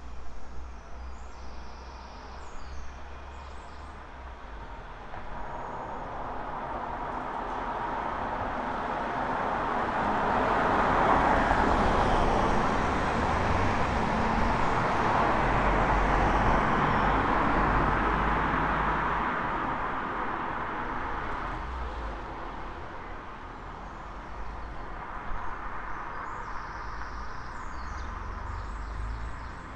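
Road traffic passing on a street: the tyre and engine noise builds for several seconds, stays loud for several more and fades away, over a steady low rumble. Birds chirp near the start and again near the end.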